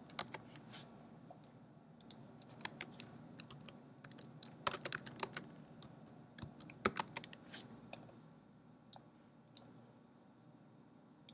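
Computer keyboard typing, faint: short runs of keystrokes with pauses between them, then a few single clicks near the end.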